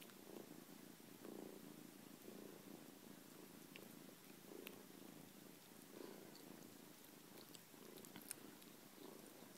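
Kitten purring faintly, the purr swelling in a slow pulse about once a second as it gnaws an ear of corn, with a few faint clicks of its teeth on the kernels.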